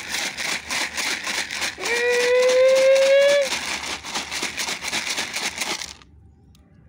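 Dry cat food rattling in a plastic container shaken to call cats, with one long drawn-out high calling note about two seconds in. The rattling stops about six seconds in.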